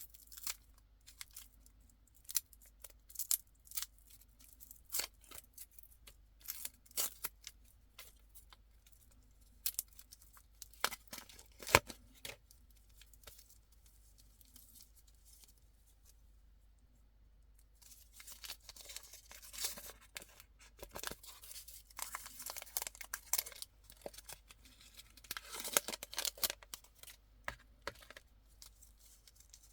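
Candy packaging being torn open and handled: sharp crinkles and clicks scattered through the first dozen seconds, a short lull, then denser crinkling and tearing in the second half.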